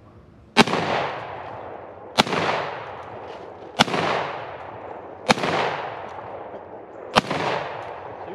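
Shotgun fired five times in quick succession, about one and a half to two seconds apart, each shot trailing off for about a second afterwards.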